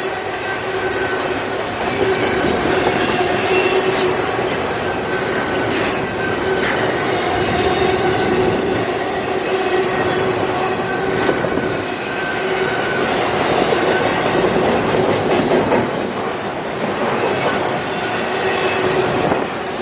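CSX intermodal freight train rolling past: a steady noise of steel wheels on rail that rises and falls a little, with rail-joint clatter and a thin steady whining tone from the wheels over it.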